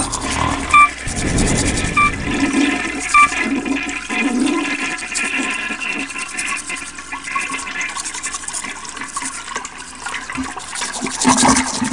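Toilet flushing: a long, steady rush of water. Three short electronic beeps sound over it in the first few seconds.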